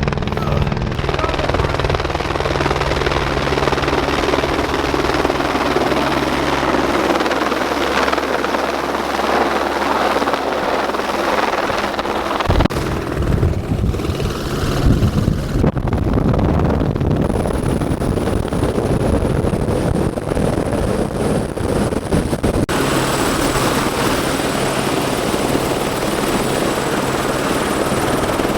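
Helicopter running: a steady, loud rotor and engine noise with a low hum, changing abruptly in tone a few times.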